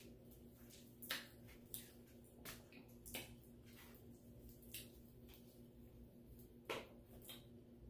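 Faint eating sounds from fried chicken being pulled apart by hand and chewed: a few scattered soft clicks and smacks, the clearest near the end, over a steady low hum.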